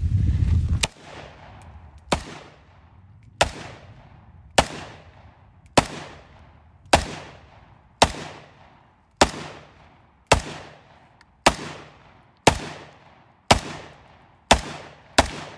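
A Century Arms Draco AK-pattern pistol in 7.62×39mm fired semi-automatically: about fourteen sharp shots at a steady pace of roughly one a second, each with an echoing tail, with the last two coming closer together. A low rumbling noise comes first, in the opening second.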